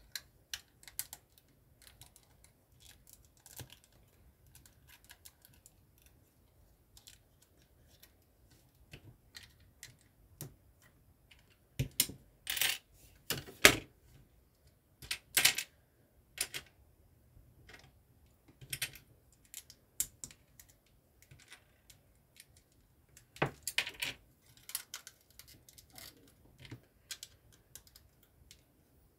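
Plastic LEGO bricks clicking and snapping as they are fitted together by hand, in irregular light clicks. A few louder clatters of loose pieces being handled come about halfway through and again later.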